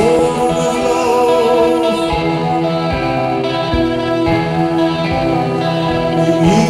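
Live rock band music: electric guitar and sustained chords held over a steady bass note, with a male voice singing.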